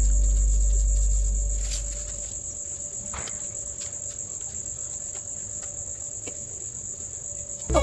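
Steady high-pitched insect chirring, like a cricket, with a faint regular pulse. Held low music notes fade out over the first two seconds, and music starts again near the end.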